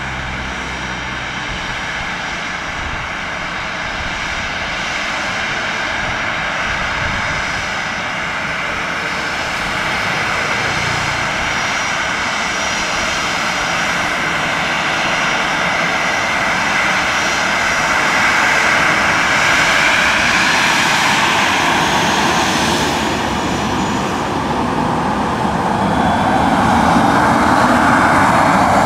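Jet airliner engines running with a steady high whine over a broad rush, growing gradually louder.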